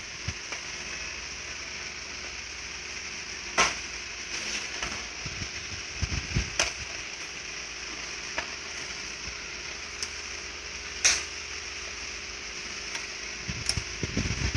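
Screwdriver work on the motor bracket of a Riso duplicator: a few sharp clicks and taps of the tool and metal parts, with low handling thumps, over a steady background hiss.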